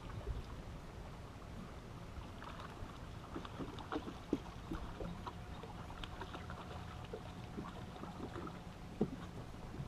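Water lapping against a bass boat's hull under a steady low rumble, with scattered light clicks and knocks on the boat.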